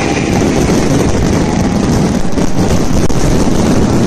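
Aerial firework shells bursting many at a time in a loud, continuous barrage, the bangs running together into one rolling rumble.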